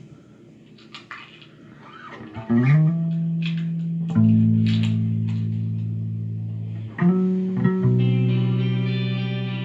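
Amplified guitar: faint string scratches at first, then about two and a half seconds in a note slides up into a long held tone, followed by two more held notes, a few seconds apart, that ring and slowly fade.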